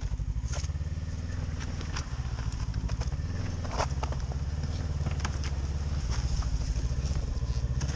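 Ski-Doo snowmobile engine running at low speed as the sled creeps forward, its note shifting a few times as the throttle is eased on and off. Scattered short clicks sound over it.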